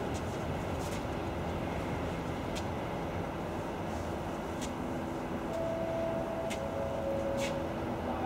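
Coal train of covered hopper wagons rolling away over pointwork behind a Class 66 diesel locomotive: a steady rumble with a handful of sharp wheel clicks and a brief high tone about five and a half seconds in.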